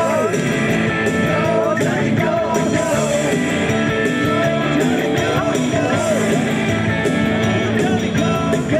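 Rock music with singing over guitar, playing continuously.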